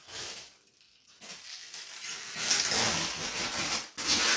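Clear protective plastic film being peeled off the transparent lid of a Bambu AMS filament unit, crackling and rustling. There is a short tear at the start, a long pull of nearly three seconds, then another short tear near the end.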